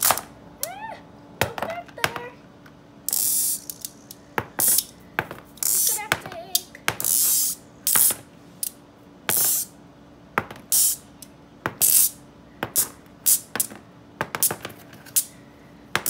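Small magnetic metal balls clicking as they snap together, with short rattling runs of balls rolling across a cardboard box lid. The sharp clicks come irregularly throughout.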